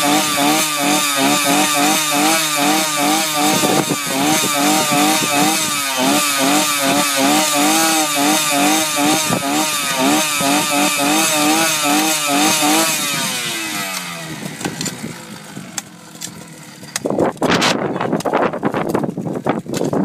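A small petrol engine running with constantly rising and falling revs, then spinning down and dying away about thirteen seconds in. Irregular knocks and bangs follow near the end.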